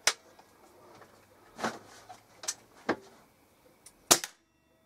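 A few short clicks and knocks of an air rifle being handled, then a single sharp SMK XS38 air rifle shot about four seconds in, the loudest sound here. Right after the shot the sound cuts out suddenly to silence.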